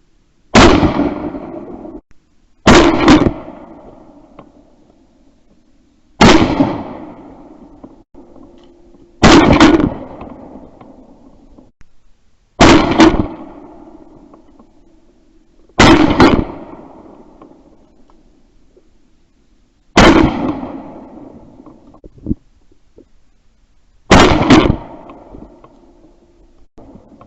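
Eight shots from a 12-gauge Weatherby Element shotgun, spaced two to four seconds apart, each a sharp report with a long fading tail.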